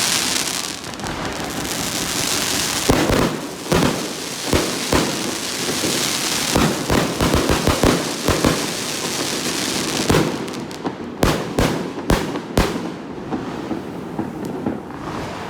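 Aerial fireworks going off: a loud crackling hiss, then a string of sharp bangs that comes thick and fast midway and thins out near the end.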